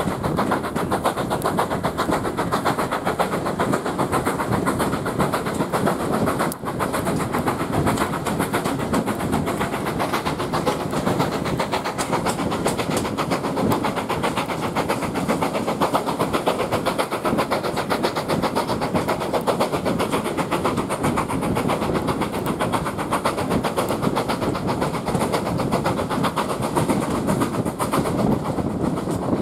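Steam-hauled passenger train running at speed, heard from an open carriage window: a steady rumble and clatter of the coach wheels on the track, with air rushing past.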